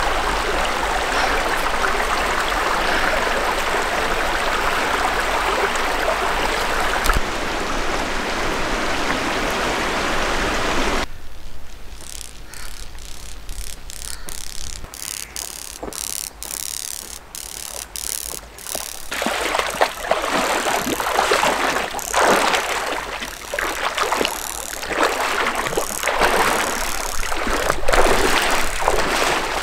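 Shallow stream water running steadily. After a cut about eleven seconds in come quieter regular footsteps through dry grass, and from about nineteen seconds a person and a dog wading and splashing across a shallow stream.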